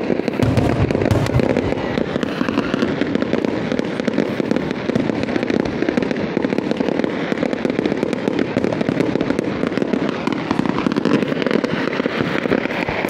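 Fireworks display: aerial shells bursting in a dense, continuous run of bangs and crackling, with heavier low booms about a second in.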